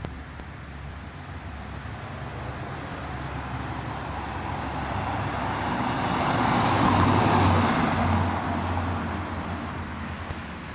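A 2014 Ford Fiesta ST, with its 1.6-litre turbocharged four-cylinder engine, drives past. Its noise builds steadily to a peak about seven seconds in, then fades as the car moves away, with not much engine noise to be heard.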